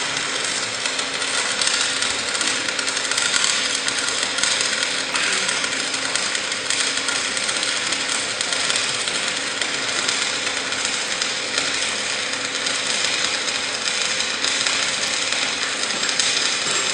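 Electric arc welder laying a bead on steel chassis members, a steady crackling hiss of the arc held without a break, with a faint steady hum underneath.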